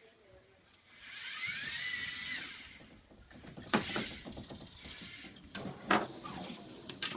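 Small electric motors of a LEGO Mindstorms robot whirring, their pitch rising and then falling for about a second and a half. Then its plastic gears and arm rattle, with three sharp knocks a couple of seconds apart.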